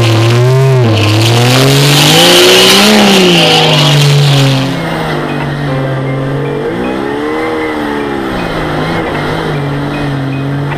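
Off-road rock-crawling rig's engine revving up and down under load as it climbs, with a loud hiss over it. About five seconds in the sound drops and turns duller, the engine running more steadily with one rev rising and falling a couple of seconds later.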